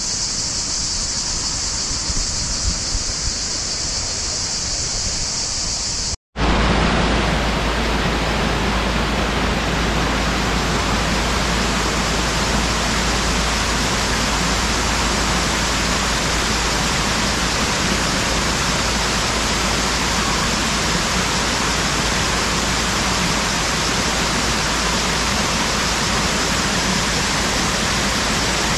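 Waterfall: steady rushing of falling water. The sound drops out for a moment about six seconds in, then returns slightly louder and deeper.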